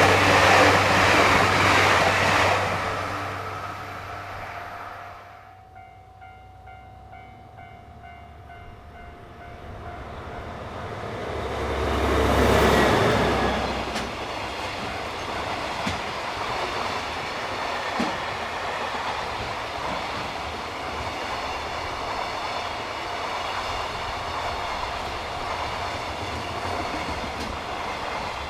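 Trains passing over a railway level crossing. One fades away in the first few seconds; the noise swells again about twelve seconds in and then runs on steadily with the sound of wheels on the rails.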